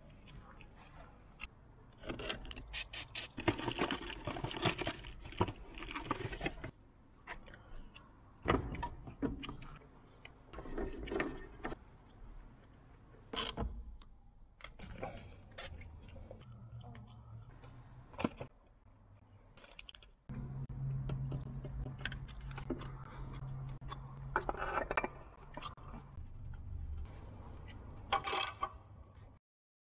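Hand tools and metal parts handled during fuel-filter work on a Toyota 1KZ-TE diesel: repeated short clicks, clinks and scrapes. A socket ratchet clicks near the end, and a steady low hum runs through the later part.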